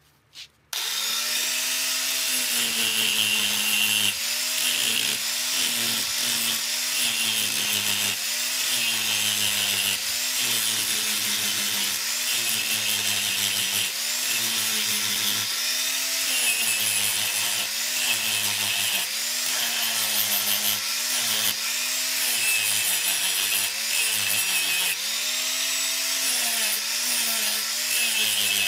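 Electric angle grinder with a flap disc starting up just under a second in and grinding scrap iron rods. Its motor whine sags in pitch and recovers again and again as the disc is pressed onto the metal and eased off.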